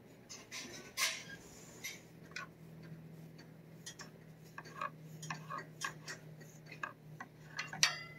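Irregular small plastic clicks and taps as a green-headed petting stick works against a cat's face and mouth, the loudest about a second in and near the end. A low steady hum runs underneath.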